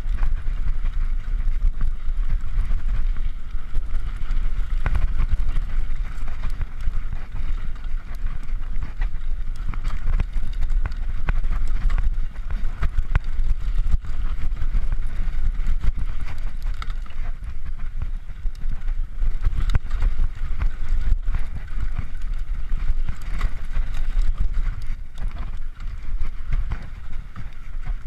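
Mountain bike riding down a bumpy dirt singletrack: constant wind buffeting on the camera microphone and tyre noise on dirt, with frequent clicks and rattles from the bike jolting over the bumps.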